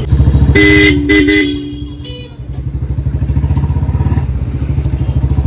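Royal Enfield Standard 350's single-cylinder engine thumping through a free-flow bend pipe and short bottle silencer while riding, with the slight air leak at the bend pipe that a gasket ring is meant to seal. About half a second in, a vehicle horn honks in three short blasts. The engine eases off around two seconds in, then picks up again.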